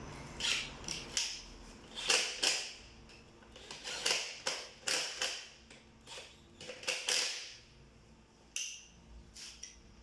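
Irregular clicks and short scrapes of hand tools and parts being worked during an engine teardown, about a dozen in all. They come thickest in the first half and thin out near the end.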